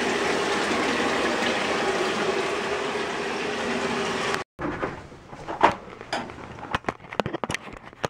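A hand-held canned air horn let out as a steady hiss of gas with only a faint low tone, cutting off sharply about four and a half seconds in. After it come scattered clicks and knocks of handling.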